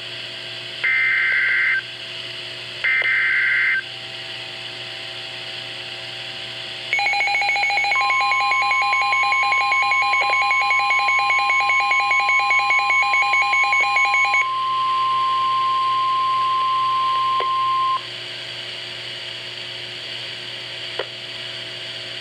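Emergency Alert System header data bursts: two harsh, buzzing digital screeches about a second long, a second apart. A few seconds later a rapidly pulsing alert tone starts, joined by a steady single-pitched alarm tone near 1 kHz. The pulsing stops halfway through, and the steady tone cuts off near the end.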